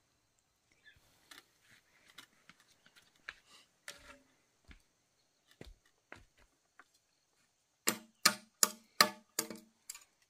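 Light scattered clicks and taps of chopsticks and utensils on ceramic dishes, then six louder, sharp knocks in quick succession with a short ring, starting about eight seconds in.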